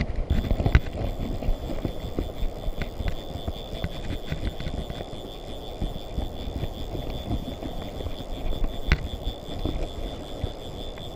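Uneven low rumbling outdoor noise, like wind buffeting the microphone beside a river, with a steady thin high whine setting in just after the start.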